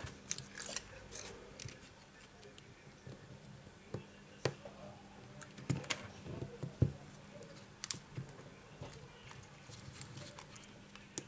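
Scattered light clicks and taps of fingers handling a Samsung Galaxy J3 smartphone and a loose replacement display module laid over it while the display's flex cable is connected to the board.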